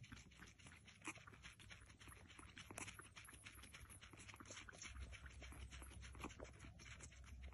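Ginger kitten suckling from a milk bottle's teat: a faint run of quick, irregular wet clicks and smacks.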